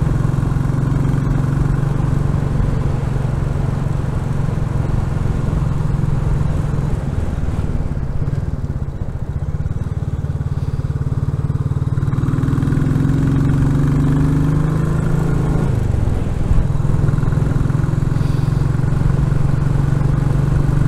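Royal Enfield Classic 350's single-cylinder engine running under way, a steady low beat with a softer stretch between about 8 and 12 seconds in, when the engine eases off. About 16 seconds in the pitch dips briefly, then picks up again.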